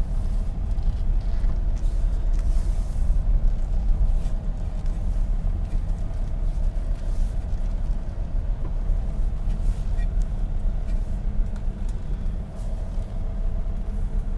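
Steady low rumble of a car's engine and road noise, heard from inside the moving vehicle.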